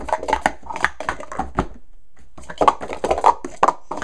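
Speed Stacks plastic sport-stacking cups being stacked up and down at speed: a fast, dense run of light plastic clacks, with a short pause about two seconds in.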